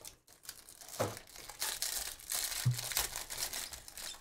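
Foil trading-card pack wrapper being torn open and crinkled in the hands, a crackling rustle with two soft thumps from handling the box.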